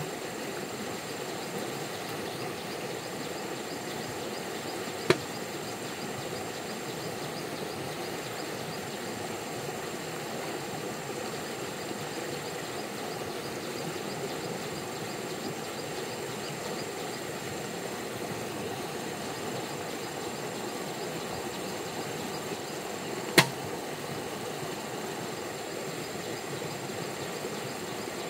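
Steady rush of flowing river water, with two single sharp clicks, one about five seconds in and one about three quarters of the way through.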